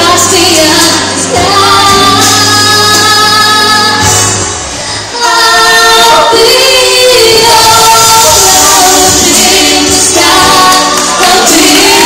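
A woman and a man singing a duet into microphones over accompanying music, loud through the hall's sound system.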